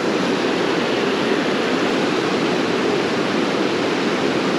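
Steady rush of a fast river running high over rocks and riffles.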